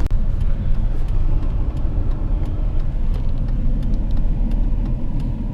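Truck driving: a steady low rumble of engine and road noise.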